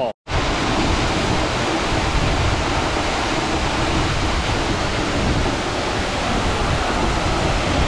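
Steady rushing of Tad Yuang waterfall, its two cascades plunging into a pool, coming in after a split-second gap.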